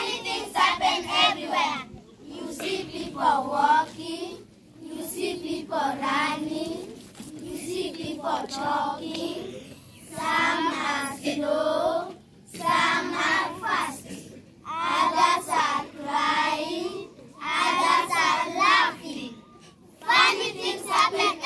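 A group of children singing in unison, in short phrases with brief breaks between them.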